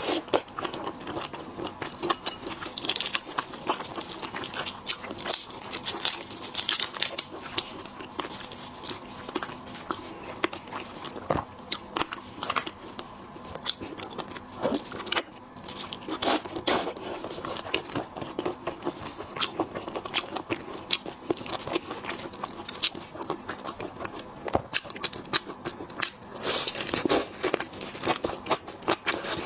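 Close-miked eating of lobster and shrimp: biting, chewing and crunching, with crackly clicks and tearing as shell and meat are pulled apart, going on in a steady stream of small snaps and smacks.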